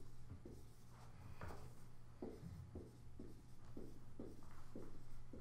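Dry-erase marker squeaking across a whiteboard in quick short strokes, two or three a second, as words are written out. A low steady hum runs underneath.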